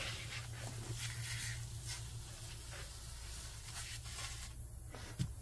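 Quiet handling of a salmon on the counter: a few soft taps and light rustles over a steady low hum, with a sharper tap near the end.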